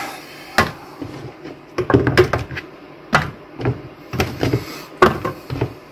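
Chunks of raw carrot being set down one by one in a roasting tray around a pork roast: a series of irregular knocks and clunks.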